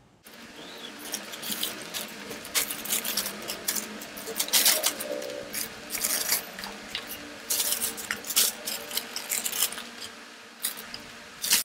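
McDonald's paper takeaway bags crinkling and rustling as they are opened and the food packaging is lifted out, with irregular sharp crackles throughout.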